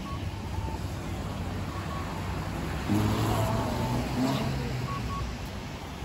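Road traffic: a motor vehicle passes, loudest from about three to four and a half seconds in, with short faint electronic beeps recurring in the background.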